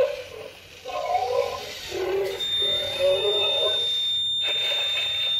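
Walking toy T-rex playing electronic roar and growl sounds through its small speaker, in several short wavering bursts. About halfway in, a steady high-pitched electronic tone starts and keeps going.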